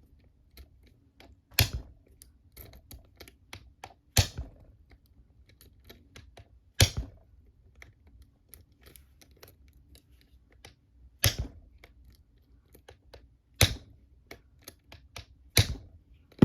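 Bump key being struck into a Master Lock Pro Series 7050 padlock: six sharp metallic knocks a couple of seconds apart, with light clicking of the key being reset between strikes. The lock, packed with security pins, does not open.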